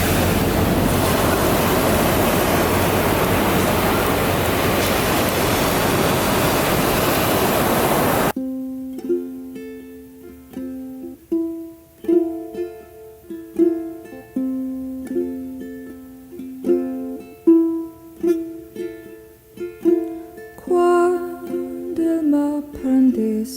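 Steady rush of ocean surf, cut off abruptly about eight seconds in by background music: a gentle plucked-string tune of single notes.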